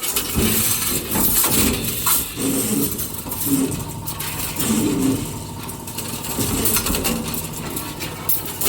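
CNC rebar stirrup bending machine running through its cycle: a steady machine noise broken by repeated sharp metallic knocks and clatter, with a short whining tone about every second.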